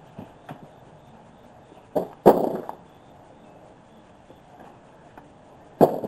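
Hands raking through loose, damp soil in a container while searching for potatoes. Several knocks stand out: two small ones at the start, the loudest about two seconds in, and another near the end.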